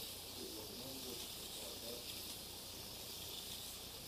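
HO slot cars running on the oval track: a steady high hiss, with faint voices in the background.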